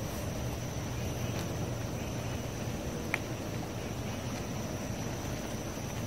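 Steady low background rumble with a thin, high, steady whine above it, and one short click about three seconds in.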